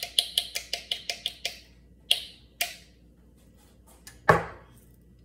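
A quick run of about ten sharp clicks, two more a moment later, then a single louder knock near the end.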